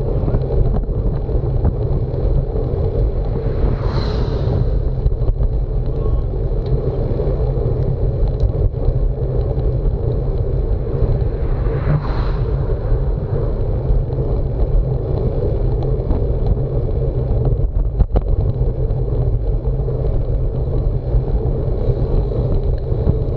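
Steady wind buffeting on the microphone of a camera moving with a road bike at riding speed, mixed with tyre and road noise. A brief swell of hiss comes twice, about four and twelve seconds in.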